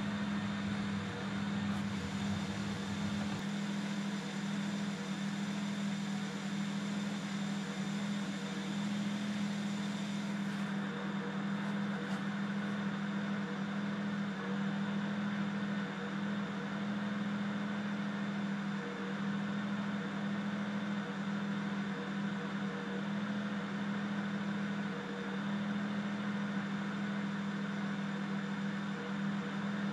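BMW 335i's turbocharged straight-six idling roughly: it sits around 800 rpm and dips as low as 650, with small sags in level now and then.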